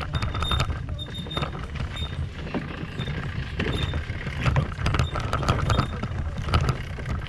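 Kayak on a wheeled cart rolling over a paved path: a steady low rumble from the wheels, with frequent clicks and rattles from the plastic hull and cart.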